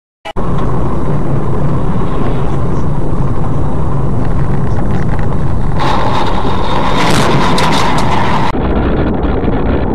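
Dashcam audio of a car driving: steady engine and road noise. From about six seconds in, a louder, higher-pitched sound with a steady tone lasts about three seconds and then stops abruptly.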